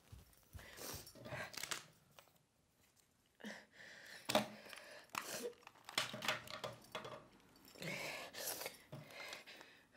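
A paper sticky note crinkling and rustling as it is handled, in several bursts with a sharp click a few seconds in.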